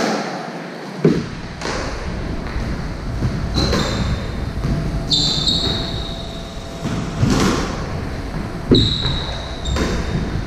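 Squash rally in a walled court: the ball cracks off rackets and walls with echoing bangs every second or two, and court shoes squeak sharply on the wooden floor several times as the players turn.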